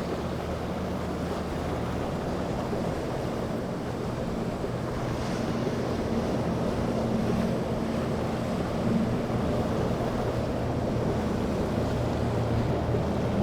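Boat engines running steadily through the inlet, mixed with waves washing and wind buffeting the microphone.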